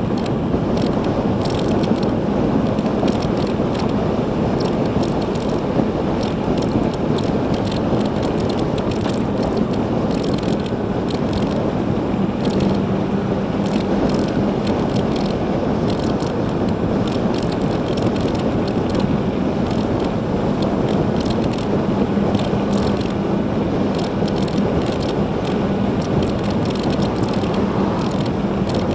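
Riding a 2016 Zero DSR electric motorcycle at a steady road speed: no engine note, just a continuous rush of wind and tyre noise with a faint steady hum. Frequent small rattles and ticks run through it.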